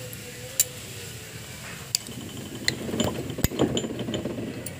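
Metal clinks and taps as a main bearing cap with its thrust washers is handled and set onto a tractor engine's crankshaft: a few scattered clicks, then a cluster of sharper knocks about three seconds in.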